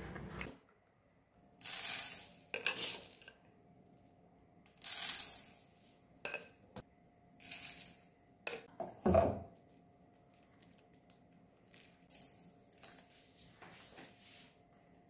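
Dry whole spice seeds are dropped by the spoonful into an empty stainless steel pan. Each lot makes a short, bright rattle as the seeds scatter across the metal. There are about five such rattles, the loudest with a heavier clink about nine seconds in, then a few lighter clicks near the end.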